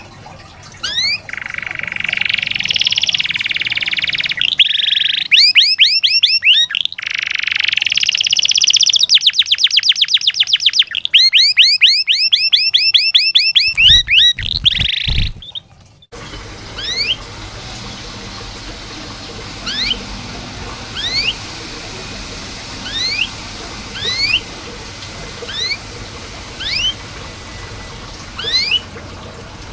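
Domestic canary singing: long fast trills and whistled rolls for about the first half. It then breaks off abruptly, and after that come short rising 'cuit' chirps about once a second over a steady background hiss.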